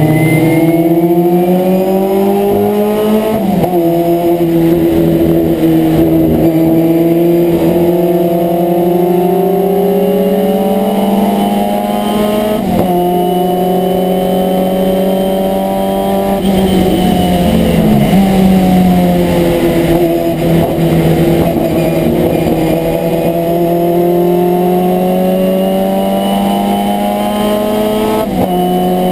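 Abarth 1000 TC's small four-cylinder race engine under hard load, heard from inside the cabin, climbing slowly in pitch as it pulls and dropping sharply at each gear change, several times.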